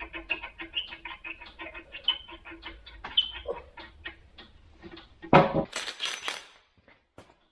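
Cordless impact wrench hammering in quick, uneven stuttering bursts as it runs down a nut on a bale handler's tine collet. About five seconds in there is one loud knock, then a second of rustling.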